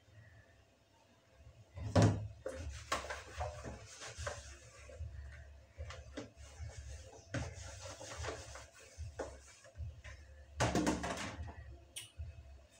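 Kitchen utensils and plastic bowls knocking and clattering on a counter as they are dried with a cloth and set down, with the cloth rustling between knocks. A sharp knock about two seconds in is the loudest, and there is a quick run of clatter near the end.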